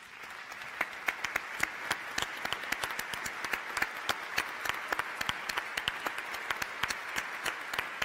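Audience applauding: a dense, steady clapping that swells up over the first second and then holds, with a few sharp individual claps standing out close by.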